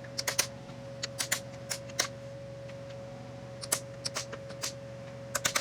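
Scattered light clicks and taps in small clusters, as of small parts and tools being handled, over the steady hum of a shop fan.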